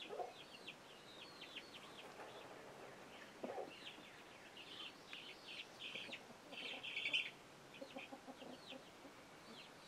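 Young chicks peeping steadily, many short high falling peeps a second, busiest about two-thirds of the way in, with a few lower clucks from an adult chicken now and then.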